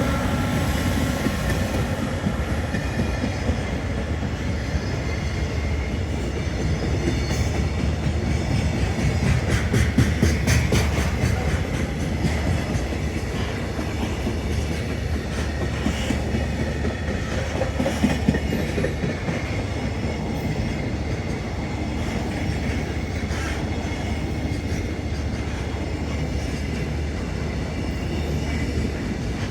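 Freight train wagons rolling past behind an electric locomotive: a steady rumble of wheels on rail, with runs of sharp clicks as wheels pass over rail joints.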